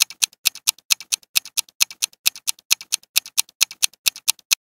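Countdown-timer clock-ticking sound effect: fast, even ticks about four or five a second, alternating louder and softer like a tick-tock, stopping just before the end.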